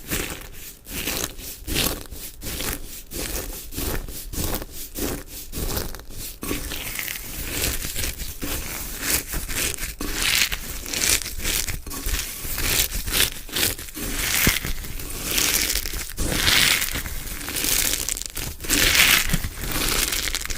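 Slime being squeezed and pressed by hand, giving squishy, crackling sounds: regular presses about two or three a second at first, then a denser crackle from about six seconds in.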